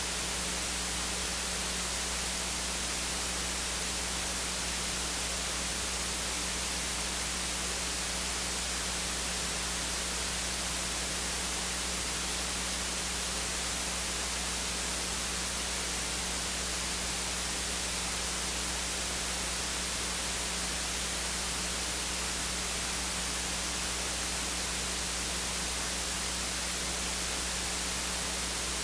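Steady hiss of recording static with a low electrical hum underneath; no music or voices come through.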